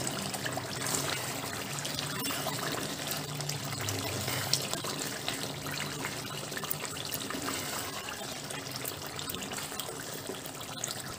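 Gongura chicken curry, cooked through, bubbling and sizzling in its separated oil in the pan while a ladle stirs it. A steady wet hiss is dotted with small pops and clicks.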